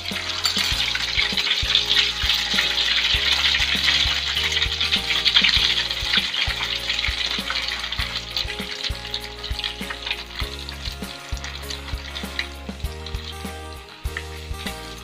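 Skewered tapioca-dough cilor deep-frying in hot oil in a wok, sizzling as beaten egg is poured in and the skewers are turned. The sizzle is loudest in the first half and eases off toward the end.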